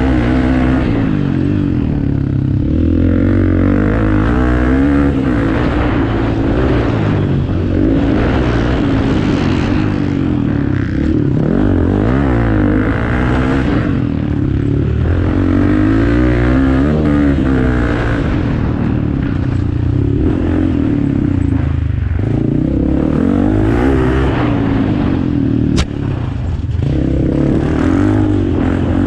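Off-road racing engines revving hard, their pitch climbing and dropping again and again as the throttle opens and closes through gear changes.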